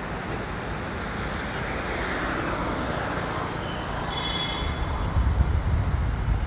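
Steady background of city traffic and rail-yard noise. A low rumble rises about five seconds in, and a few brief high-pitched tones sound around the four-second mark.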